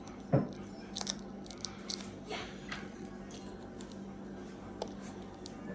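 Laptop screen parts being handled: one sharp knock about a third of a second in, then light plastic clicks and short scraping rustles, with another click near the end, over a steady low hum.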